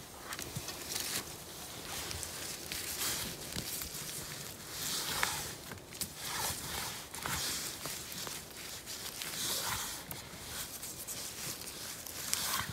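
Irregular soft rustling and footsteps on moss, pine needles and undergrowth, with a gloved hand picking mushrooms from the moss near the end.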